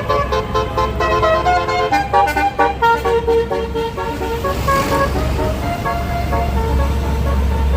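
Basuri multi-tone 'telolet' bus air horn playing a fast, melodic run of short notes, then slower, sparser notes, with a bus engine rumbling underneath. A brief hiss comes about halfway through.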